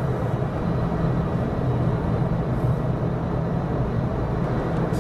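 Steady cabin noise inside a Gulfstream G550 business jet with its jet engines running: a low rumble and rush with a faint high whine over it.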